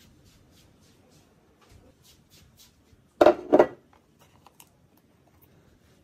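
Handling noises while a cheesecake is unmolded from its collar strip. Faint light clicks and rustles run throughout, then two loud, short rubbing scrapes follow each other closely about three seconds in.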